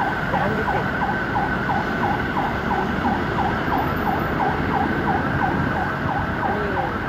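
An electronic siren sounding in quick, repeated dips of pitch, about three a second, over a steady rushing noise.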